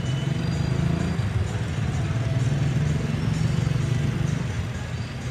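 A motor vehicle engine running in town traffic: a steady low hum that grows louder about a second in and eases off near the end, over a general hum of town noise.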